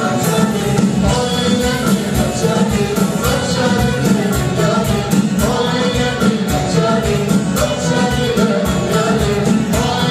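Live Turkish folk ensemble: a male lead singer over plucked long-necked saz (bağlama) lutes, flute and keyboard, with a steady beat.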